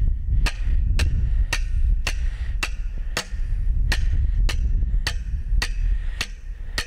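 Evenly spaced sharp clicks, about two a second, over a steady low rumble.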